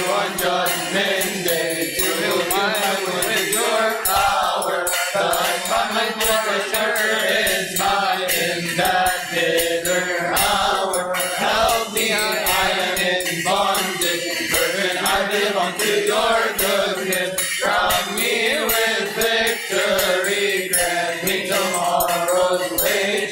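Church chanters singing a long drawn-out melisma of an Arabic hymn to the Virgin Mary, the pitch winding up and down without clear words, over a steady low held note.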